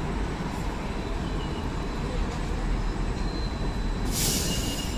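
Steady low vehicle rumble, with a short burst of hiss about four seconds in.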